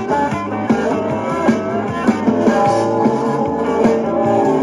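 Rock song with guitar and steady drum hits, played from a cassette on a Sony WM-51 Walkman through a small portable speaker.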